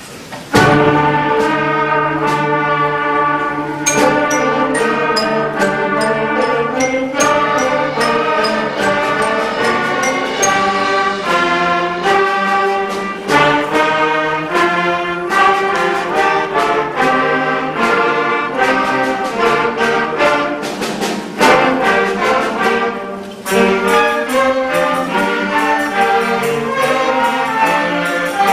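School intermediate concert band, brass and woodwinds with percussion, coming in with a sudden loud full-band entrance about half a second in and playing on in sustained chords punctuated by drum strokes.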